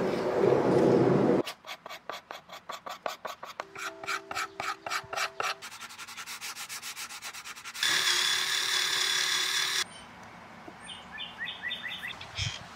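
A sanding block is rubbed back and forth over wood by hand in quick rasping strokes, about six a second, which speed up past the middle. A louder steady hiss lasts about two seconds, and faint short chirps come near the end.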